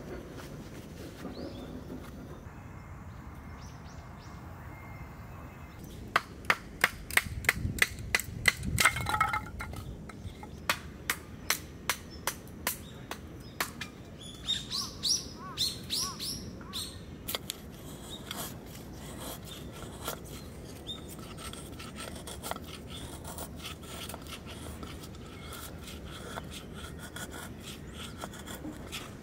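Firewood being handled: a quick run of sharp wooden clicks and knocks, a few bird chirps midway, then fainter ticks and scrapes as a knife shaves curls off a pine stick for a feather stick.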